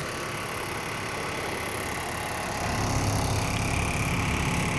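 Roadside traffic noise, with a passing vehicle's engine coming in and getting louder a little over halfway through.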